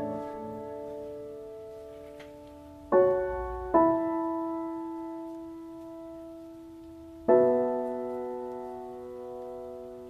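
Background music: slow piano chords, struck about three seconds in, again just after, and once more about seven seconds in, each left to ring and fade.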